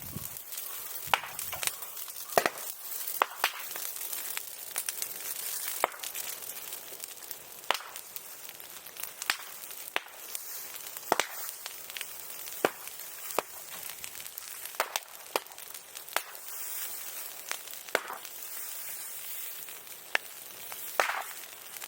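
Open bonfire of brush and green bamboo crackling, with irregular sharp pops every second or two over a steady hiss of burning.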